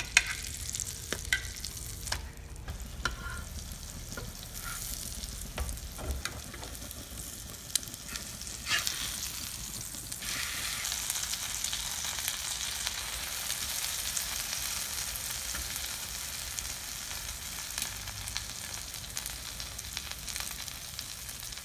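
Egg-dipped bread slices frying in butter in a flat pan: a steady sizzle that grows stronger about halfway through, once a slice has been turned onto its uncooked side. A few clicks and scrapes of a metal spatula against the pan in the first seconds and again near the middle.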